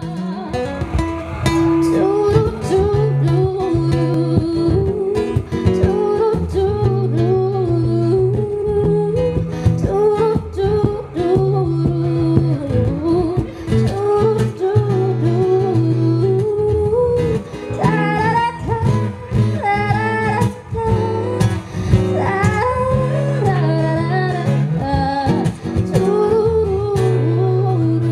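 Background music: a song with a singing voice over guitar and sustained low bass notes.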